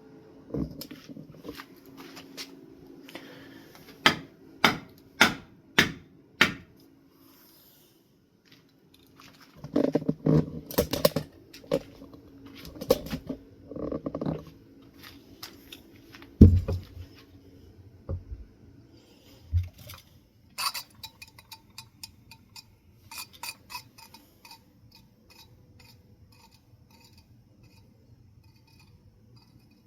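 Metal ceiling fan motor parts clinking and knocking as the bearing housing is seated during reassembly: a run of five sharp taps about half a second apart a few seconds in, some clatter and a couple of heavier thuds in the middle, then a ringing metallic rattle.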